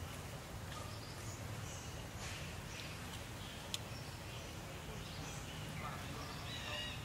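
Outdoor ambience: a steady low hum with scattered short, high chirps and squeaks from small animals or birds, a sharp click a little past the middle, and a brief pitched call near the end.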